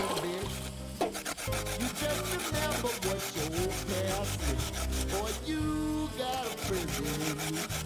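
Raw potatoes being grated on a white plastic hand grater: quick, rhythmic rasping strokes that start about a second in.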